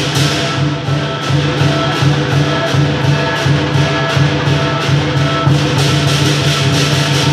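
Lion-dance percussion: a large drum beaten steadily with cymbals clashing about three times a second and a gong ringing under them, keeping time for the lion on the poles.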